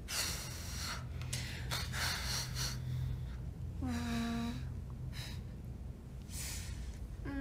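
A young woman's breathy exhales and sighs, then a short closed-mouth hummed "mm" about four seconds in and another right at the end, over a steady low background hum.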